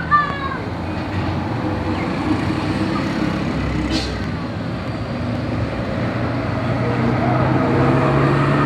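A large bus engine running as the bus approaches, a steady low hum that grows louder toward the end, with a single sharp click about four seconds in.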